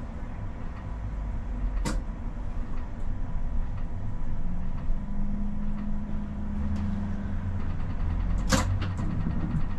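Tram running on its rails, heard from on board: a steady low rumble, with a steady motor hum that holds for about three seconds midway. Sharp clicks or clunks sound about two seconds in and twice near the end.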